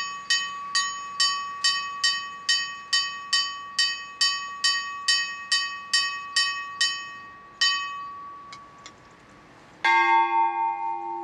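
Church bells ringing a Maltese festa peal. A small high bell is struck quickly, a little over twice a second, and stops about seven and a half seconds in. After a short pause, a much deeper bell gives one loud stroke that keeps ringing.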